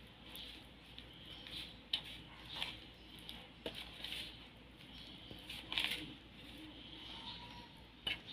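Metal spoon stirring corn kernels into flour in a ceramic bowl: irregular scrapes and light clinks of the spoon against the bowl.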